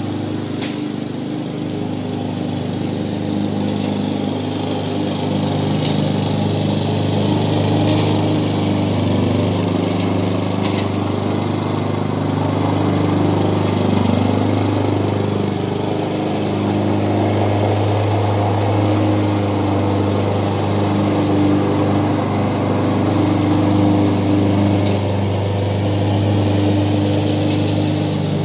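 Honda walk-behind lawn mower's single-cylinder four-stroke engine running steadily while cutting grass, growing louder as the mower passes close by about halfway through, with a few sharp ticks of debris.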